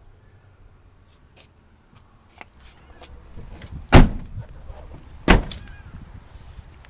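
Two loud thuds about a second and a half apart, a truck door being shut, after a few light clicks and handling noises.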